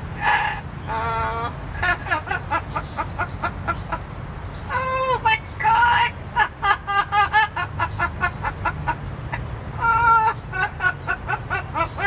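Amazon parrot laughing: runs of short, quickly repeated cackling notes, with a louder, longer call about five seconds in.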